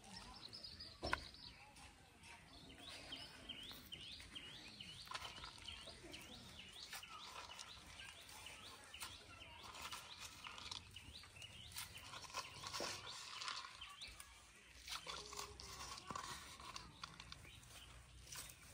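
Birds chirping, with a long run of short, quickly repeated calls over faint outdoor ambience, and a few light clicks and crunches.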